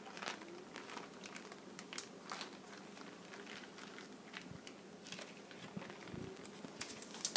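Plastic snack-sized zipper bags of lemon juice crinkling faintly as they are handled and pressed flat, with scattered small crackles and clicks.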